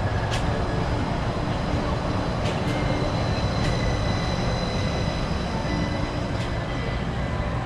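Disneyland Mark VII monorail train running past on its elevated concrete beam: a steady rumble of rubber tyres and electric drive, with a thin high whine in the middle of the pass and a few sharp ticks.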